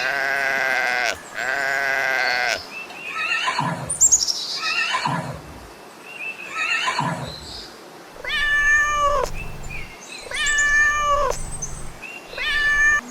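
Farm animal calls: a long bleat, then about six shorter high-pitched calls, the first three falling in pitch and the last three held level.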